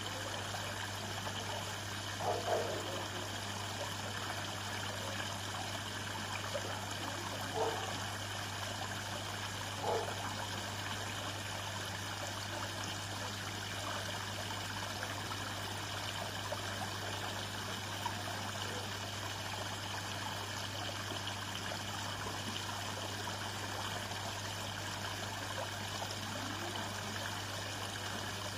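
Small garden pond waterfall trickling steadily down stone steps into the pond, over a steady low hum. A few brief soft sounds come through about two and a half, seven and a half and ten seconds in.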